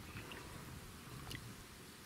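Faint splashing and dripping of water around a hand holding a perch in the water, with a few small ticks of droplets.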